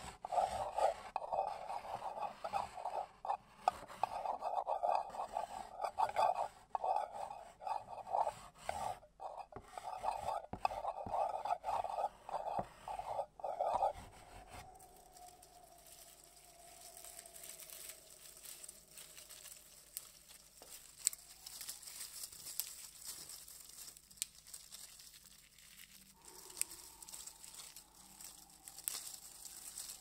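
Chalk scraping and rubbing across a board in quick, irregular strokes. It stops abruptly about halfway through, leaving a much quieter background of fine crackling with a faint, slowly falling tone.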